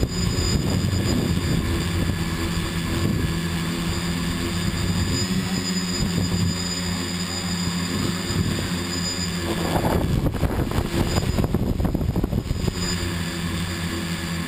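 Small radio-controlled aircraft's motors and propellers, recorded from on board, giving a steady multi-tone hum that shifts a little in pitch as it flies. A rougher, noisier stretch comes about ten to twelve seconds in.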